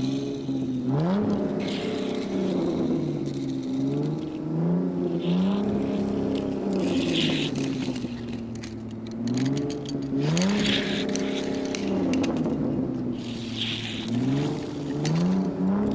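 Car engine accelerating again and again, its pitch rising and then levelling off as if shifting up through the gears, about four times.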